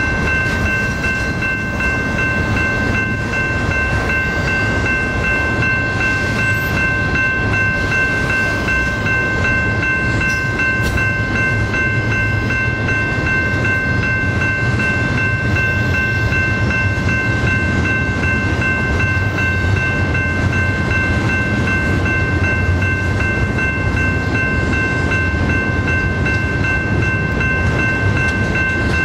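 Double-stack intermodal container train's well cars rolling past: a steady rumble of wheels on rail, with a steady high-pitched squeal held over it.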